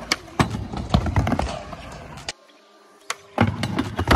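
Skateboard wheels rolling over a hard court with clacks and knocks from the board. Sound cuts out abruptly about two seconds in. Loud clacks and impacts follow near the end as the board hits and rides onto a wedge ramp.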